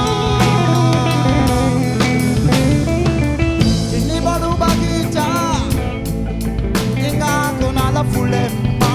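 A band playing a rock song, with guitar and drum kit.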